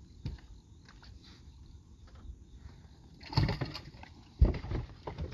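Knocks and thumps on a bass boat's deck over a low steady rumble, with a cluster of clatter about three and a half seconds in and a sharp thump, the loudest sound, about a second later.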